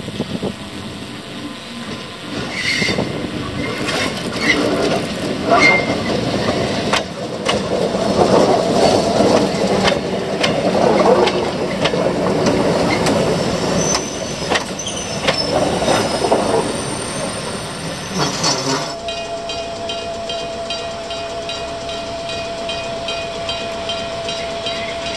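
English Electric electric multiple unit Dm 27 passing close on jointed track: rolling wheel noise with sharp clicks over the rail joints and a few short wheel squeals, building to its loudest in the middle. It changes suddenly near the end to a steady, quieter hum with the unit standing.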